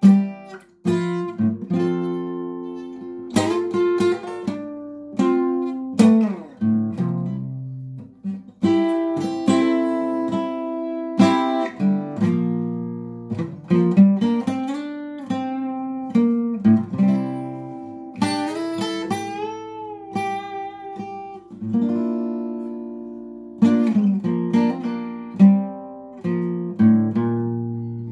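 Solo acoustic guitar playing a slow instrumental piece: chords struck and left to ring out, phrase after phrase, with brief pauses between phrases.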